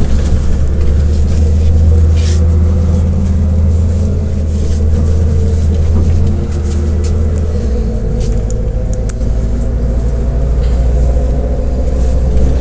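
Cabin sound of a MAZ-105 articulated city bus underway: a loud, steady low diesel drone with a rumble, with faint rattles. The drone changes note about eight seconds in.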